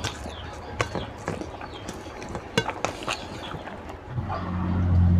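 Close-miked mukbang eating sounds: wet chewing and irregular sharp lip and tongue smacks. About four seconds in, a low steady hum starts and becomes the loudest sound.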